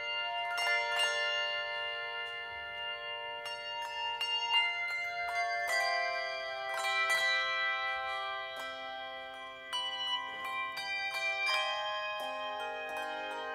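Handbell choir ringing: bells struck in overlapping chords that ring on, with new notes and chords coming every second or so.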